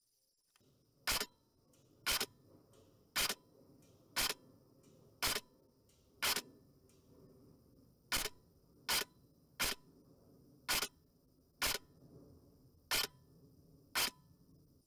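Delta Armory Freya R15 Mk18 electric airsoft rifle firing single shots, thirteen sharp clacks about a second apart with one slightly longer pause in the middle.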